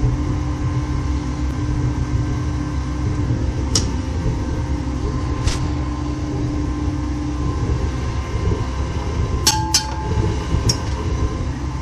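A steady low roar with a faint hum, broken by a few sharp metallic clinks and knocks from a tilt-casting rig as molten aluminium is poured from a ladle into a tilting aluminium die and the die is tilted back. Two clinks come close together about three-quarters of the way in.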